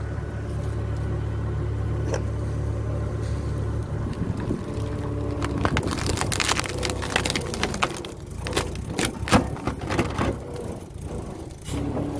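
Tractor engine running steadily while its hydraulic wedge cutter is forced into a eucalyptus root. From about halfway there is a run of sharp cracks and crunches as the wood splits and tears under the blade.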